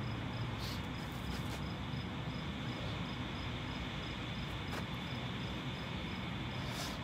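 An insect, cricket-like, chirping steadily at about four high chirps a second over a low background rumble, with a few brief soft rustles as a person drops to the grass and gets up.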